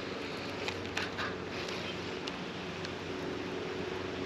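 Steady low hum of an electric trolling motor, with a few faint ticks over it.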